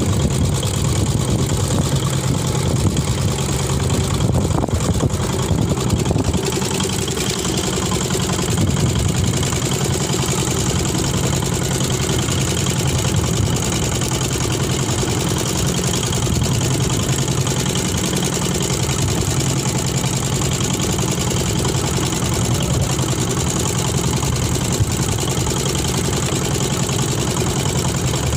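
Fishing boat's engine idling steadily, a low, even drone.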